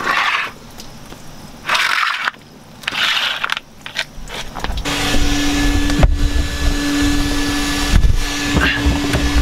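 Rotating lawn sprinkler spraying water under a vehicle, its hiss coming in separate bursts as the jet sweeps past. About five seconds in, a steady hiss with a low hum sets in, broken by a few knocks.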